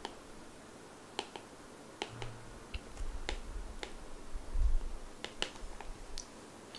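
Stylus tapping and clicking on a tablet screen during handwriting: scattered sharp clicks at irregular spacing, with a soft low bump about two-thirds of the way through.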